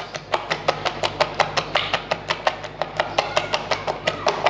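A hand beating thick ground urad dal batter in a glass bowl, with quick wet slaps at about five a second. This is the batter being whipped for dahi vada.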